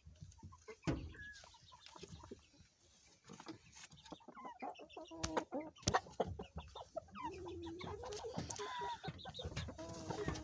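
Chickens clucking, a string of short calls, some drawn out and bending in pitch, with a few sharp clicks among them.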